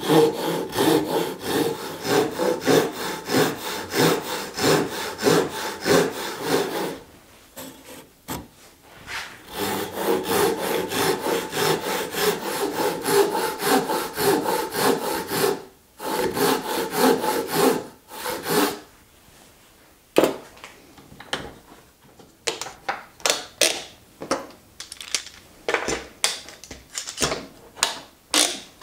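Handsaw crosscutting the end of a Douglas fir 4x4 post in quick, even strokes. The sawing comes in three runs with short pauses between them. It gives way to scattered, quieter strokes and knocks near the end.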